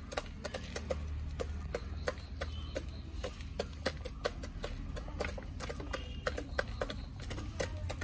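Chickens pecking feed from a plastic feeder tray: quick, irregular beak taps, several a second.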